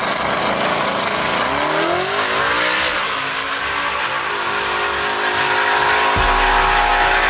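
Twin-turbo 5.0 V8 Mustang at full throttle on a drag-strip run, loud and steady. The revs climb and then drop once at an upshift of its automatic gearbox about three seconds in.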